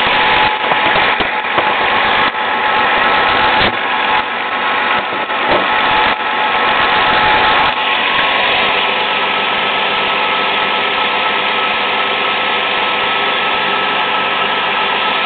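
Dodge Stratus 2.7-litre DOHC V6 idling steadily under the open hood, without ticks or clicking by the owner's account. A few brief irregular noises come in the first six seconds, then the running is even.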